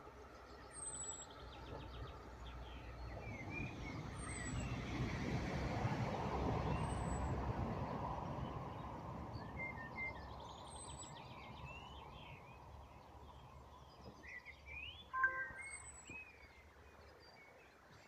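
Birds singing and chirping, with a thin high call repeated every few seconds and one louder call about fifteen seconds in. Under them, the low rumble of a passing vehicle swells and fades over the first part.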